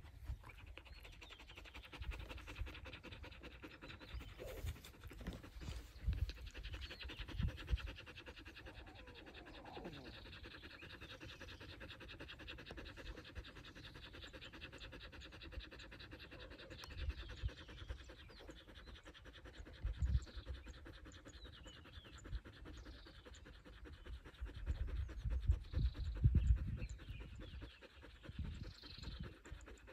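A dog panting rapidly with its mouth open. Irregular low rumbles and thumps come in now and then, loudest a few seconds before the end.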